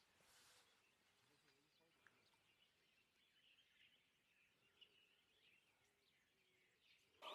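Near silence outdoors, with faint scattered bird chirps.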